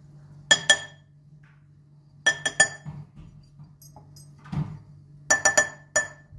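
A small drinking glass tapped against the rim of a glass mixing bowl to knock the last of the flour out: sharp ringing clinks, twice near the start, three times after about two seconds and four times near the end, with a duller knock in between.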